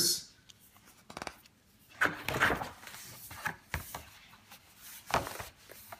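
Pages of a large paper catalogue being handled and turned: a few short paper rustles and swishes, the loudest about two seconds in and again about five seconds in.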